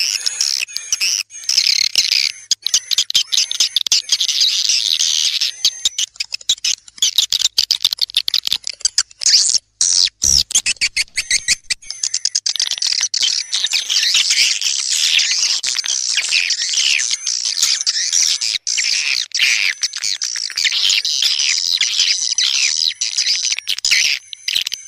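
Edible-nest swiftlets twittering: a dense stream of rapid, high chirps. There is a brief break about ten seconds in. This is a swiftlet lure-call track of the kind played to draw the birds into a nesting house.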